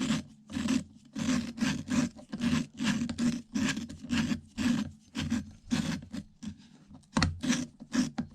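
Intake valve of a Honda Z50 cylinder head being lapped: twisted back and forth with a screwdriver so that the valve grinding compound grates against the valve seat, in quick gritty strokes about two or three a second, with a short pause near the end.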